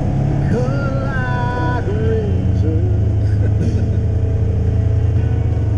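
Side-by-side UTV engine running with a steady low drone while the vehicle drives along a dirt trail.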